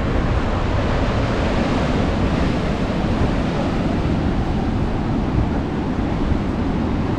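Heavy surf from a big ocean swell, waves breaking and washing in a steady continuous rush, with wind buffeting the microphone.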